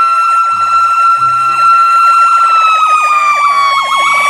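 Fire truck siren sounding: a fast, repeating electronic yelp under a steady, piercing high tone. The whole siren dips a little in pitch about three seconds in.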